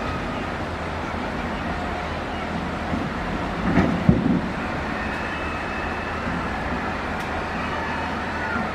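Hydraulic excavator's diesel engine running steadily under work, with a loud metallic clunk and brief clatter about four seconds in.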